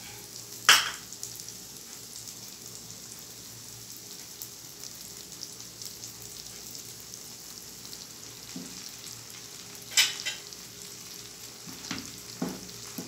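Egg omelette frying in oil in a nonstick pan, with a steady sizzle. Two sharp knocks come about a second in and about ten seconds in, and a few softer knocks follow near the end.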